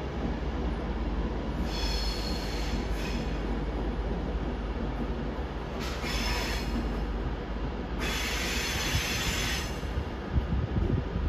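Train wheels squealing on the rails as a train moves slowly. A steady low rumble runs throughout, and high squeals come three times: about two seconds in, around six seconds, and a longer one at about eight seconds.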